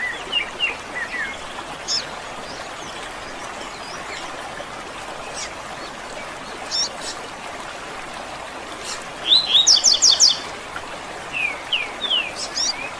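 Wild birds chirping and calling over a steady background hiss. The calls are scattered short chirps, with a loud quick run of about six notes about nine seconds in, followed by a few falling chirps.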